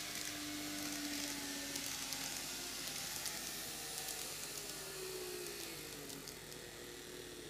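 KATO N-gauge model of a JR Shikoku N2000-series diesel railcar running on TOMIX superelevated curved track: the small electric motor hums, its pitch drifting and sliding down about two-thirds of the way in, over a hiss of wheels on the rails and scattered light clicks.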